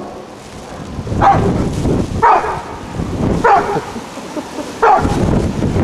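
Black Labrador retriever barking four times, about a second apart, each bark falling in pitch.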